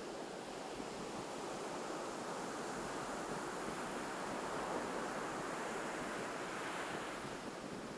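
Ocean surf at a beach: a wave breaking and washing in, the rush building over a few seconds and easing off near the end.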